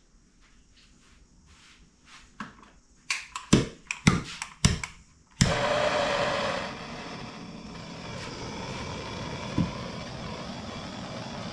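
Several sharp knocks and clicks of handling, then a steady motor-driven whirring noise that switches on suddenly, loudest for its first second, and runs on steadily.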